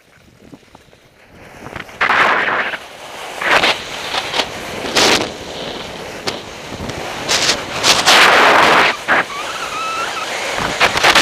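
Skis scraping and carving on packed snow during a fast descent, in loud surges with the turns, mixed with wind on the microphone. It starts quiet and grows loud about two seconds in.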